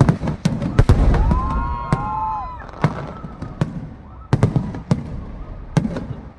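Aerial fireworks bursting: a string of sharp cracks and bangs, roughly one every half second to second, over a low rumble. About a second in, a sustained high pitched tone holds for over a second.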